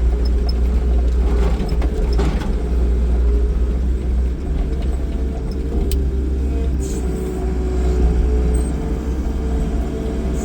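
New Holland L225 skid loader's diesel engine running steadily, with a single short click about six seconds in.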